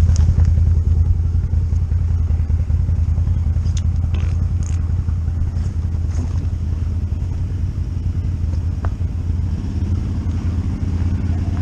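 ATV engine idling with a steady, deep hum. Near the end a second ATV grows louder as it comes closer.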